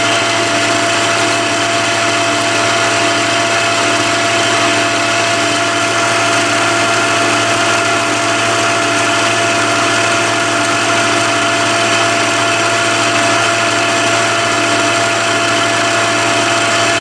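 Milling machine spindle running at about 1600 rpm with a 6 mm end mill taking a 1 mm deep cut along a metal bar. A steady, even running sound with a constant whine in it.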